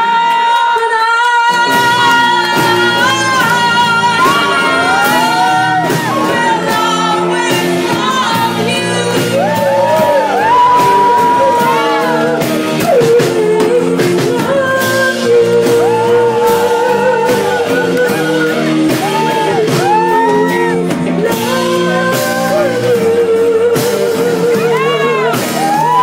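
A woman singing with vibrato over a live band of acoustic guitar and drums; the band's low end fills in about a second and a half in.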